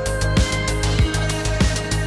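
Electronic background music: heavy bass with a kick drum about every 0.6 seconds under sustained synth notes.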